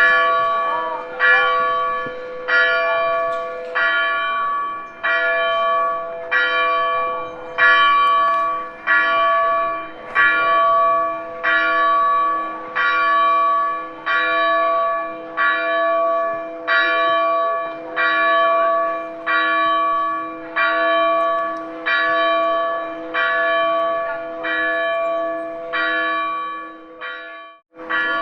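A single church bell tolling steadily, struck a little more than once a second, each stroke ringing on under the next. The sound cuts out briefly near the end.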